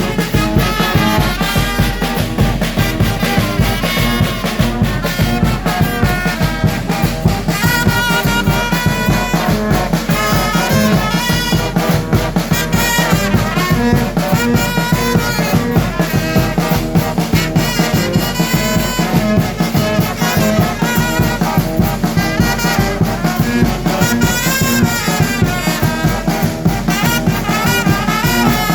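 Mexican brass band playing: trumpets and trombones carry the melody over a steady drum beat.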